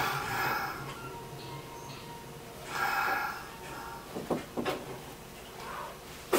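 Quiet station-platform ambience beside a stopped commuter train, with two faint muffled sounds and a pair of sharp clicks about four and a half seconds in.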